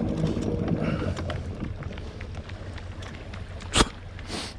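Steady low hum of a bow-mounted electric trolling motor pushing a bass boat, with wind noise on the microphone. A single sharp knock about three-quarters of the way through.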